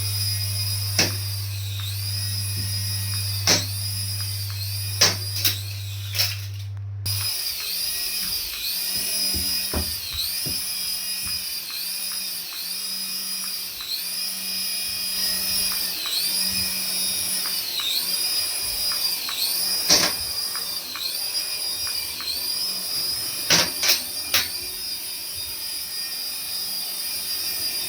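Battery-powered toy's electronic sound effect: a high warbling tone that dips in pitch about once a second, over and over. A low hum stops about seven seconds in, and a few sharp clicks sound along the way.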